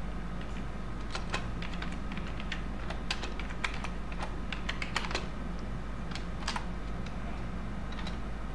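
Computer keyboard being typed on: an irregular run of key clicks, thickest in the first half and then a few scattered strokes near the end, over a steady low hum.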